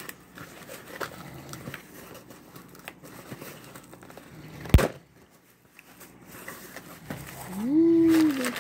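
A cardboard shipping box being opened by hand: small rustles and clicks of tape and flaps, one sharp snap about halfway through as the seal tears, then crumpled packing paper rustling. Near the end a voice rises into a loud held tone.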